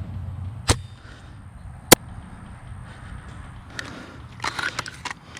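Two sharp airsoft gun shots about a second and a quarter apart, the second louder, then a quick run of clicks near the end.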